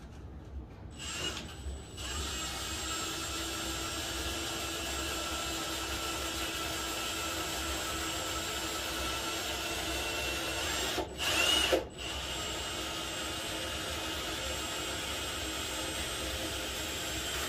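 Cordless drill running with a steady whine as its bit grinds into a carved foam form. It starts about a second in, cuts out twice around eleven seconds in with a short louder burst between, then runs on steadily.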